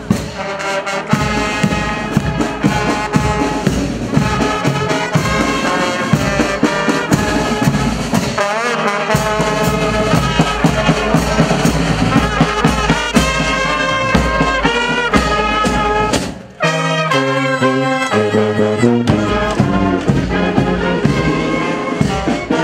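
Marching brass band playing, trombones and trumpets over drums, with a short break about sixteen seconds in before the playing resumes.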